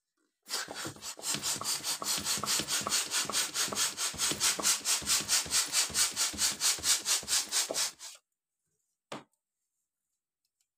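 Plastic hand balloon pump worked in rapid, even strokes, each pushing a puff of air into a latex balloon as it inflates. The strokes stop after about seven and a half seconds, and a single brief knock follows a second later.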